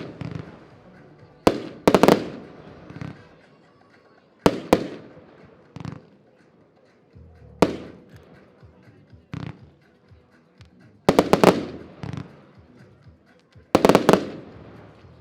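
Diamond No. 1 firework battery firing: groups of sharp bangs from shells breaking in the air, a cluster every two to three seconds, each followed by a fading crackle and echo.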